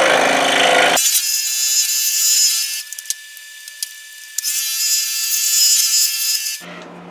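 Scroll saw running with a No. 7 Pegas modified-geometry blade, cutting hard maple. It is loudest in two stretches with a quieter spell in the middle, and a steady high whine runs under it.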